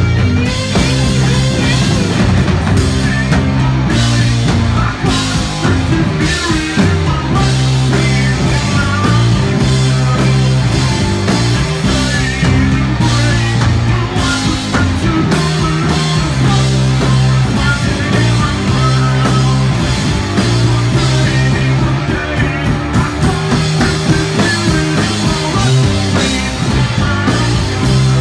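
Live heavy psychedelic rock band playing at full volume: distorted electric guitar over pounding drums and crashing cymbals, with a heavy, steady bass line.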